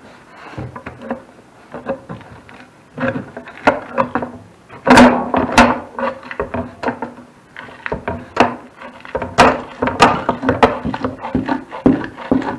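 A steel bar scraping and knocking along the gasket channel of a metal wood-furnace door, clearing out the old gasket. The scrapes and sharp clanks come in irregular bursts and are loudest about five seconds in and again around nine to ten seconds.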